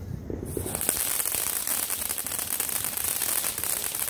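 Several ground fountain fireworks catch about half a second in and spray sparks with a steady hiss and dense crackling.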